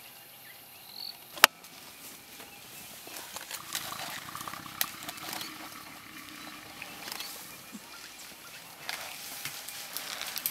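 African elephants feeding in thick bush: leaves and twigs rustling and crackling as the herd browses and pushes through the vegetation. One sharp crack about a second and a half in.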